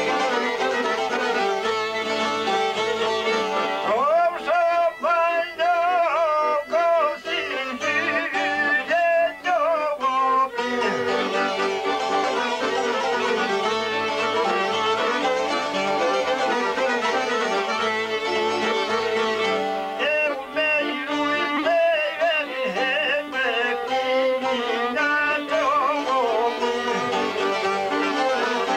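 Albanian folk music played live: a violin carries a wavering melody over the strummed sharki and çifteli, with an accordion in the ensemble.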